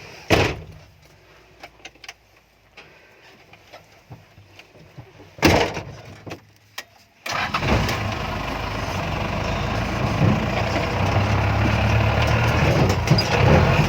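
Toyota Dyna truck diesel engine in a Daihatsu Taft off-roader running under steady load. It cuts in abruptly about seven seconds in and slowly grows louder. Before that it is mostly quiet, with two short loud knocks near the start and about five seconds in.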